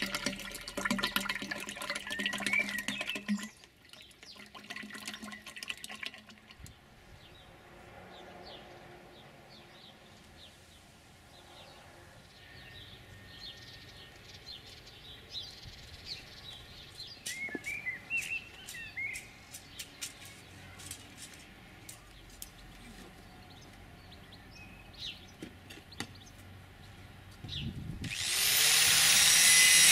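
Cooking oil glugging as it is poured from a plastic bottle into a square steel tube. Then quiet outdoor ambience with a few bird chirps. Near the end an angle grinder spins up with a rising whine and starts grinding the end of a steel tube, loudly.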